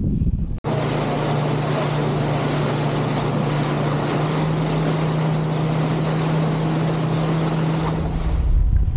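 A small rescue boat's outboard motor running at speed, a steady drone, with water rushing and spraying past the hull. Under a second in, wind buffeting the microphone gives way abruptly to the engine and spray.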